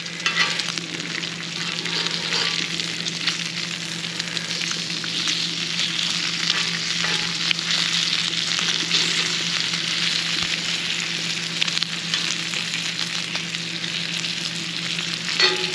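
Bacon frying on a large cast iron griddle heated over charcoal: a steady sizzling, crackling hiss, with a few light clicks.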